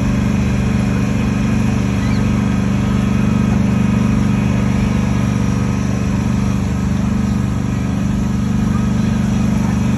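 Small park road train running steadily, heard from on board: a constant low engine hum with no change in speed.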